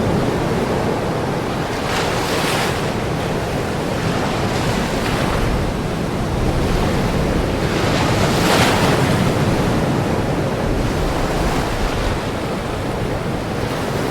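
Ocean surf washing continuously onto a shore, with waves breaking a little louder about two seconds in and again just past eight seconds.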